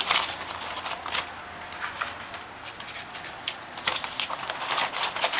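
Small tools and parts clicking and rattling as they are handled and set into a clear plastic toolkit case, in irregular knocks.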